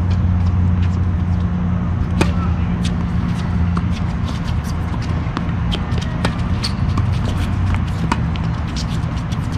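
Doubles tennis rally on a hard court: repeated sharp racquet-on-ball strikes and ball bounces, with the strongest hit about two seconds in, plus many lighter taps and footsteps. A steady low hum runs under it all.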